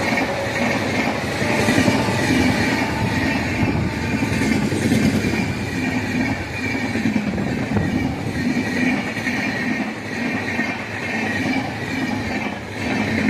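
Train running along the track, its wheels clattering steadily over the rails with a high, sustained squeal of wheels against the rail.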